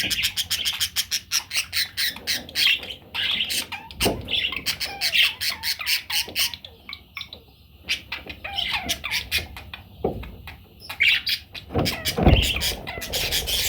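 Budgerigars chattering, with rapid chirps and squawks. They fall quieter for a moment around the middle, and a few low thumps come through, the loudest near the end.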